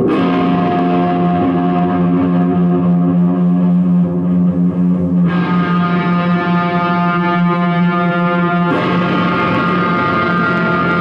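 Live noise-music drone: a loud, dense wall of held tones played through effects, shifting abruptly to a new chord-like texture about five seconds in and again near the end.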